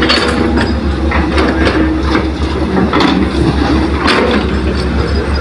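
Heavy earthmoving machinery running with a steady low diesel drone, over which come irregular clanks and knocks.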